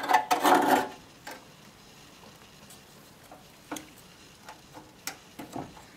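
A handful of light clicks and taps, a second or more apart, as a strap is folded over the boiler and fastened onto the still's cradle.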